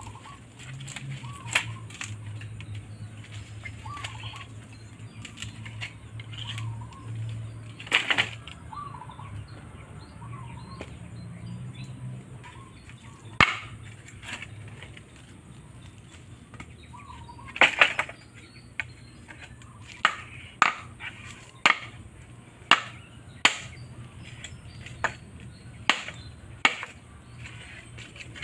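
Bamboo being hacked with a bolo: single sharp chopping strokes, a few scattered at first, then about one a second near the end.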